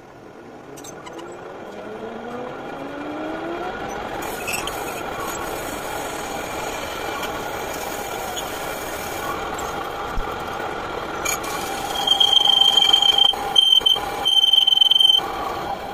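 Metal lathe cutting across the face of a large spinning metal disc, a steady cutting noise with a whine that rises over the first few seconds. Near the end the cutting tool squeals loudly and high-pitched in three spells.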